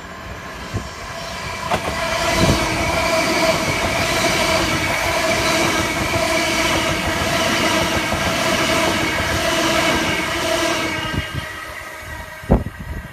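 Two coupled Class 379 Electrostar electric multiple units passing close by. The train's sound builds over the first couple of seconds, holds steady with a hum of several steady tones, and dies away after about eleven seconds. A single sharp thump comes near the end.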